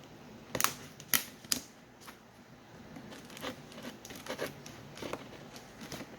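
A cardboard box and its packaging being opened by hand: three sharp snaps in the first second and a half, then quieter scratching and rustling of the packaging.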